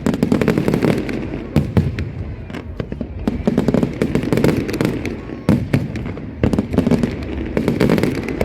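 Fireworks display: a rapid, dense barrage of aerial shells bursting, sharp bangs and crackles overlapping over a heavy low rumble.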